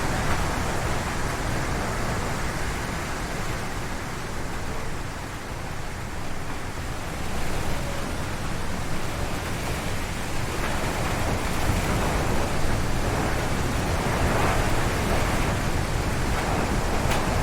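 Strong wind gusting through forest trees, a steady rushing that eases a little about five seconds in, then builds again in gusts.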